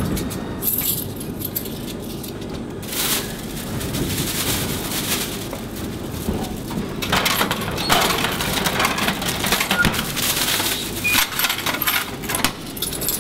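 Thin plastic carrier bag rustling and crinkling as packaged food from a vending machine is put into it, with scattered light clicks and knocks. It is loudest in a short spell about three seconds in and a longer one from about seven seconds.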